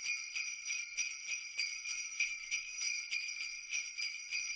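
Sleigh bells jingling, shaken in a steady rhythm of about three shakes a second, with a bright high ringing and nothing low beneath it.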